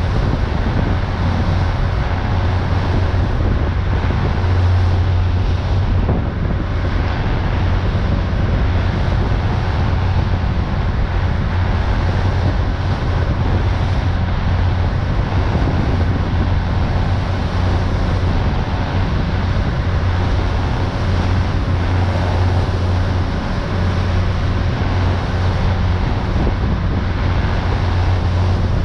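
Pilot boat running under way, heard on board: a steady low engine drone with rushing noise and wind buffeting the microphone.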